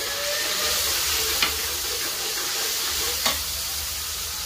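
Tamarind sauce sizzling in a large metal wok as a metal spatula stirs it, a steady frying hiss. The spatula clicks against the wok twice, about a second and a half in and again about three seconds in.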